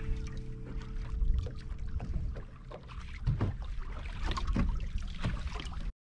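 Wind on the microphone and choppy water lapping and slapping against a bass boat's hull, with irregular knocks and splashes; the sound cuts off suddenly near the end.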